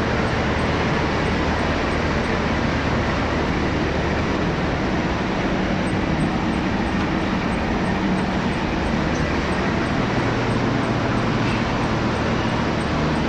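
Steady, loud mechanical din of a running recycling line: belt conveyors and crushing machines, with a low hum underneath.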